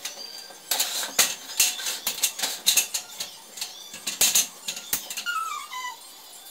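Aluminium stepladder clattering as it is carried, opened and set down: a quick run of sharp metallic knocks and clicks, then a short falling squeak near the end.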